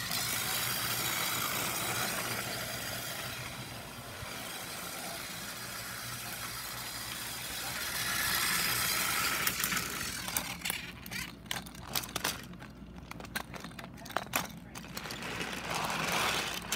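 Rubbing and rustling of a hand against the phone's microphone, steady for the first half, then a run of sharp clicks and knocks over the last six seconds.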